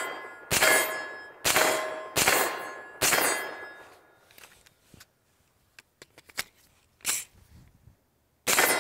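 Shots from a Faxon Bantam 9mm pistol-caliber carbine: a quick string of four, about a second apart, each followed by a short metallic ring. After a pause comes a lighter crack, then one more shot near the end.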